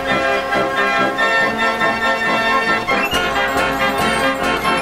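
Fairground organ playing a tune on its pipes, with percussion strokes beating along in the second half.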